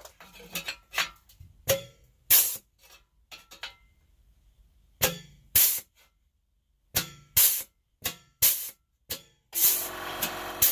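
Pneumatic punch and flange tool worked repeatedly on thin sheet steel. Each stroke gives a short, sharp hiss of air, about a dozen of them with pauses between. Near the end a small air compressor starts and runs steadily as it recharges.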